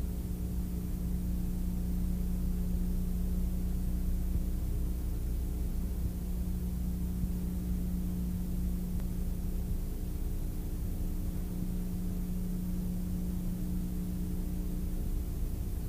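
Piston engine and propeller of an aerobatic plane droning steadily at an unchanging pitch, heard from inside the cockpit.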